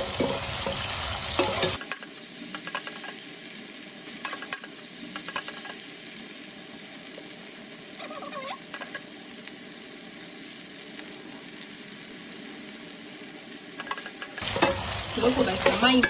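Sliced onions and green bell peppers sizzling in oil in a pot as they are sautéed soft, stirred with a metal spoon that clinks against the pot. The sizzling and stirring are louder near the start and end, with a quieter steady sizzle and a few scattered clinks in between.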